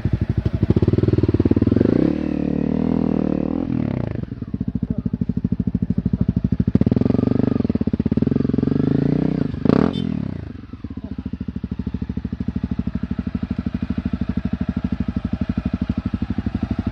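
Single-cylinder four-stroke trail bike engine running, its revs rising and falling, with a brief sharp clatter near the middle. The engine note dips for a moment a little after that.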